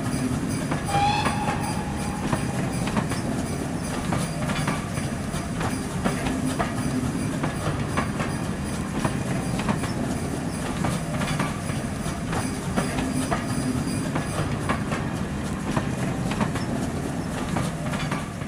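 Train running along the track: a steady rumble with repeated clicks of the wheels over the rails, and a brief high squeal about a second in.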